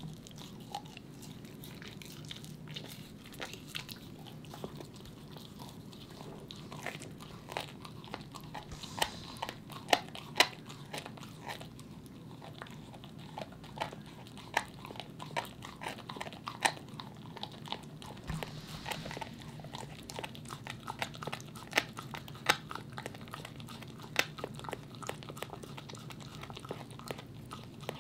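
A corgi gnawing on a raw meaty bone: irregular sharp crunches and scrapes of teeth on bone, the loudest about nine to ten seconds in and again a little after twenty seconds.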